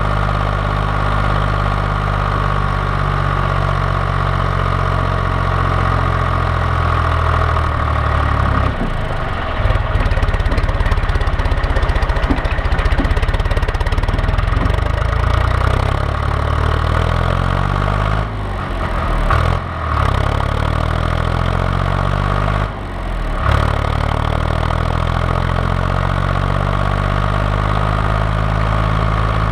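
John Deere 1130 tractor's diesel engine idling steadily, then running harder and louder for several seconds about a third of the way in. Its speed slides down and back up twice before it settles into a steady run again.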